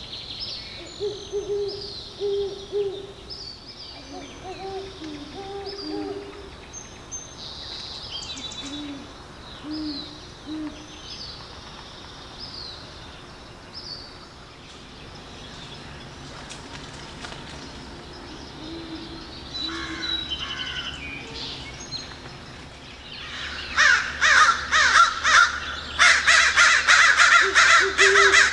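Great horned owl hooting: several short series of low, soft hoots through the first half. From about three-quarters of the way in, loud, harsh bird calls repeat rapidly and drown them out.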